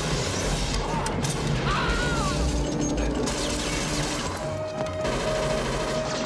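Film action sound effects: crashing and smashing debris amid dense noise, with a musical score underneath and held tones in the later part.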